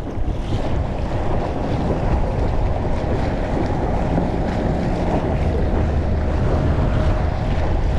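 Wind buffeting the microphone over water rushing against the hull of an inflatable micro-skiff running at about 7 mph through choppy water under electric outboard power. A faint steady whine shows in the middle.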